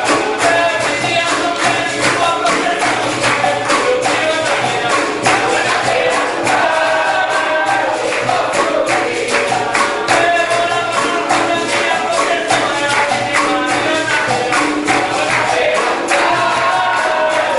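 Capoeira roda music: a group singing together over pandeiro jingles, an atabaque drum and hand clapping, in a steady, unbroken rhythm.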